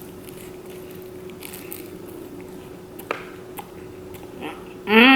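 Chewing a crispy egg roll, with a few sharp crunch clicks. Near the end comes a brief, louder voiced sound whose pitch rises and then falls.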